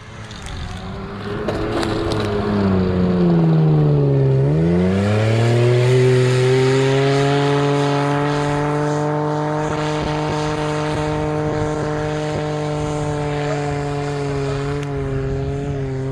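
Mitsubishi Pajero's 3.0 V6 engine under load as the 4x4 drives across soft mud. The engine note drops and then climbs sharply again about four seconds in, then holds at steady high revs.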